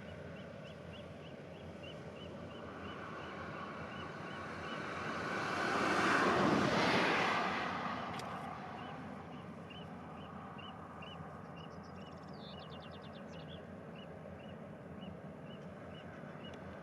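A vehicle passes close by, its noise swelling to a peak about six seconds in and fading away, over a steady outdoor background with a faint high chirp repeating about twice a second.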